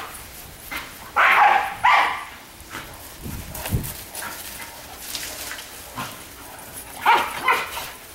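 Dogs barking while play-fighting: two loud barks about a second in, and a quick run of barks near the end.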